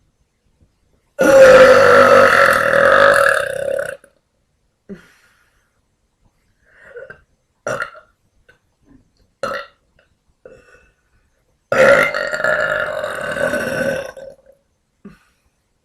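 A woman belching: two long, loud burps about ten seconds apart, the first lasting about three seconds, with a few short, quieter sounds between them.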